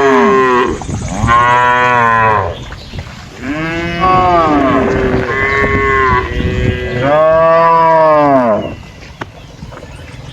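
Cows mooing: a run of long, loud calls one after another, each rising and then falling in pitch, two of them overlapping in the middle, then a quieter lull near the end.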